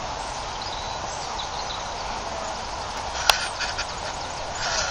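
Outdoor ambience of a steady hiss with a few faint bird chirps, then one sharp click a little over three seconds in followed by a quick run of softer clicks and a short rustle near the end.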